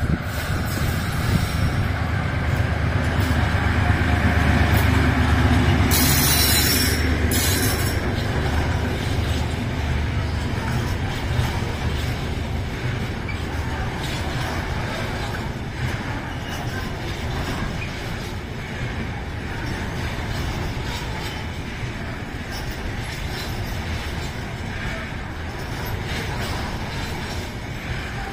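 Diesel locomotive hauling a container freight train past: the engine's rumble is loudest over the first several seconds, with two short hisses about six and seven seconds in. After that comes the steady rolling of the loaded container wagons' wheels on the rails, with some squealing and clicking.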